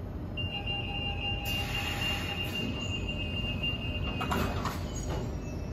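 Renfe class 447 electric commuter train standing at the platform with a steady hum, while a high warning tone sounds for about four seconds over a hiss of air. A short run of clunks comes as the tone stops: the door-closing sequence before departure.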